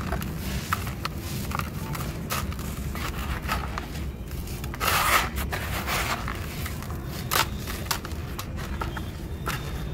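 Hands digging into and squeezing dry, gritty sand-cement mix in a plastic bucket: irregular scraping and crackling of grit and crumbling lumps. The handling is loudest about five seconds in.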